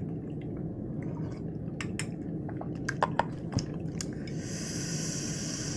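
Close-miked eating sounds from chewing a lettuce wrap: wet mouth clicks and squishes, with a few sharper clicks about three seconds in and a soft hiss lasting about a second and a half near the end, over a steady low background hum.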